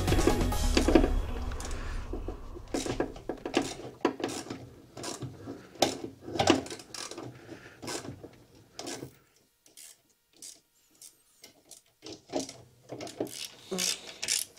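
A wrench clicking and knocking in short, irregular strokes as the exhaust pipe's mounting nuts are tightened on a Vespa ET2 two-stroke scooter engine, with a pause of a few seconds partway through.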